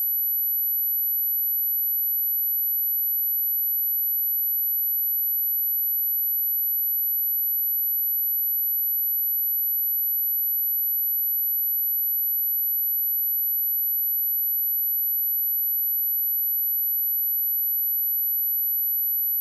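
A pure 11875 Hz sine-wave test tone, one steady very high-pitched whine held at constant level, generated for speaker testing and for clearing water and dust from a speaker.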